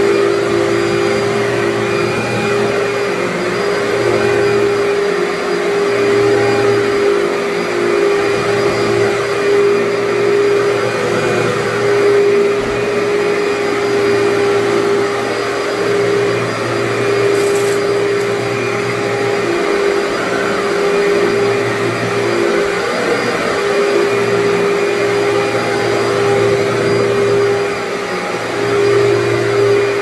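Commercial upright vacuum cleaner running steadily while being pushed back and forth over carpet. It gives a constant motor whine over a rushing hiss, and a lower hum comes and goes every few seconds with the strokes.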